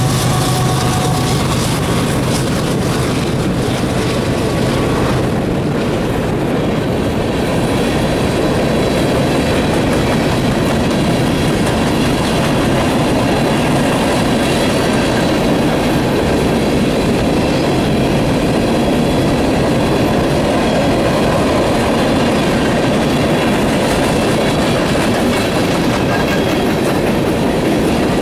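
Passing freight train: a Union Pacific SD70M diesel locomotive's engine drone fades in the first few seconds. A long string of aluminum coal gondolas then rolls past with a steady rumble of steel wheels on rail and a rhythmic clickety-clack.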